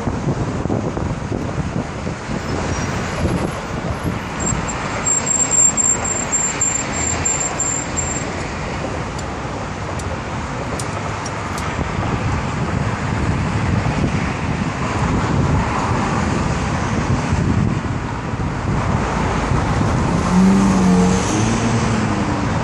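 Road traffic on a bridge: cars and a pickup truck driving past, a steady rush of tyre and engine noise that swells a little in the second half, with a short low tone about twenty seconds in.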